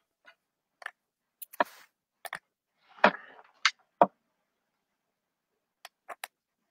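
Short clicks, taps and rustles of hot-glue guns and craft pieces (burlap, small pumpkins) being handled at a wreath. The sounds come often in the first four seconds, then pause, then a few more come near the end.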